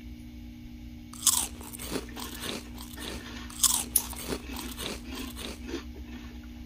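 A person chewing a mouthful of crunchy cereal in milk: crisp crunches begin about a second in and go on irregularly for several seconds.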